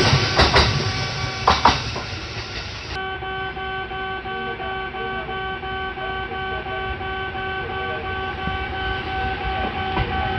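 A train passes with its wheels clattering over the rails. About three seconds in, the sound cuts abruptly to a Japanese level crossing's electronic warning bell ringing steadily.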